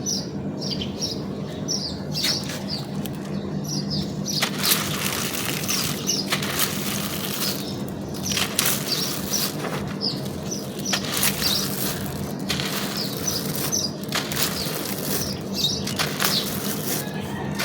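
Dry, crunchy material crumbling and crushing by hand: a continuous crackle with many sharp snaps scattered throughout.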